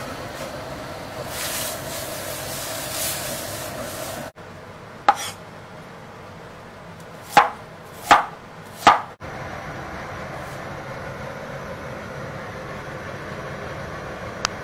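A cleaver chopping apple on a bamboo cutting board: four sharp knocks, the last three under a second apart. Before them there is a steady hiss from a steaming wok, and after them a softer steady hiss.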